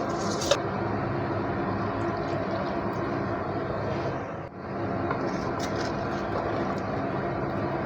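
Steady roar from the stove as a kadai of marinade gravy heats over the gas flame on its way to the boil, with one sharp clink of metal utensils about half a second in. The noise drops out briefly around the middle.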